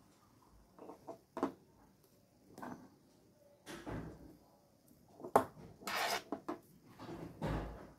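Quiet handling noise on a workbench: scattered clicks, knocks and rustles as alligator-clip test leads and the circuit board are moved about, the sharpest click about five and a half seconds in.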